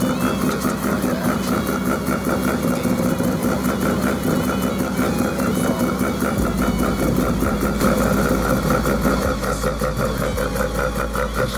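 Mazda RX-4's freshly rebuilt bridgeported rotary engine running steadily at idle on its first startup after the rebuild.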